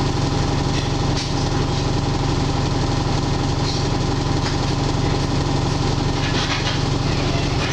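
Alexander Dennis Enviro 300 single-deck bus's engine running steadily, a low drone heard from inside the passenger cabin.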